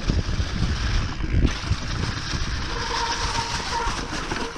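Mountain bike riding along a dirt forest trail: a steady noisy rumble of tyres and wind on the microphone, with scattered small knocks. A faint steady whine joins in the second half.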